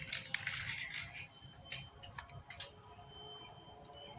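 Steady high-pitched insect drone, with scattered light clicks and rustles.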